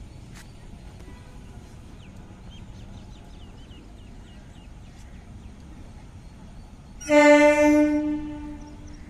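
Electric MEMU train's horn giving one steady-pitched blast about seven seconds in, loud for about a second and then trailing off, the signal of the train departing.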